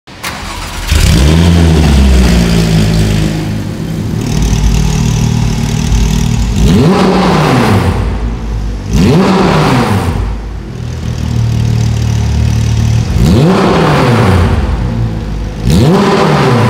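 Porsche 997.1 GT3 RS's 3.6-litre Mezger flat-six, fitted with an iPE exhaust, being revved while parked. It is held at high revs for a couple of seconds, then blipped several times, each rev rising and falling back, and held high again. It is very loud, reading about 115 dB on a sound meter near the tailpipes.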